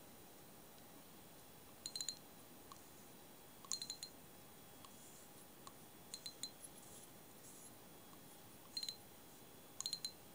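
Daiwa Silver 1300C spinning reel's spool and front drag knob being worked by hand: small, sharp metallic clicks in about five short clusters, a second or two apart.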